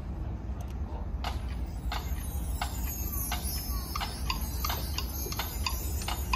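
A count-off before a marching band starts to play: about eight sharp, evenly spaced clicks, roughly three every two seconds, beginning about a second in, over a steady low rumble.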